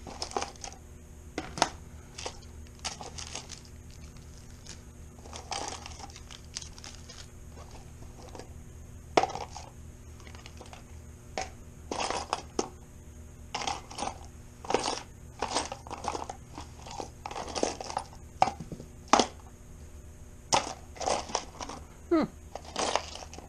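Irregular clicks, taps and small clatters of hard objects being handled: small hand tools and hex drivers picked up, tried and set down while working on an RC car. The clicks are scattered, with busier clusters in the second half, over a faint steady hum.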